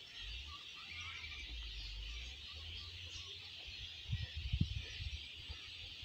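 Faint outdoor background with birds chirping in the distance, and a few low bumps about four seconds in.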